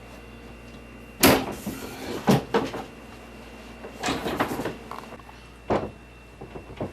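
A series of sharp knocks and clatters, the first about a second in the loudest, over a steady low hum.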